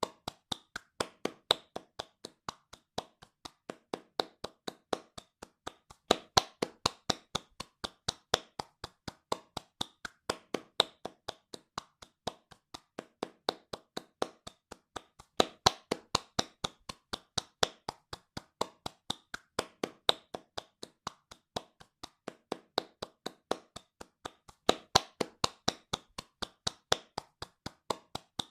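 A pair of hands clapping fast in an even rhythm, about four claps a second, some claps louder than others.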